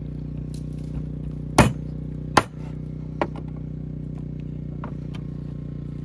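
Vehicle engine idling steadily with a low hum. Two sharp knocks come about one and a half and two and a half seconds in, with a few fainter clicks later.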